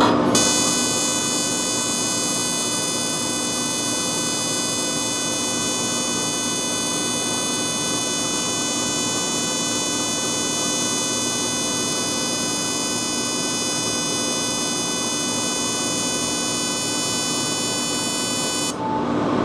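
Excimer laser firing its rapid pulses during topography-guided corneal ablation (T-CAT) of a keratoconus eye: a steady, even buzz that begins just after the start and cuts off sharply after about 18 seconds, when the ablation is complete.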